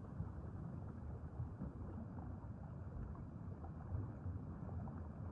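Underwater ambience: a steady low rushing rumble of moving water, with faint scattered crackling.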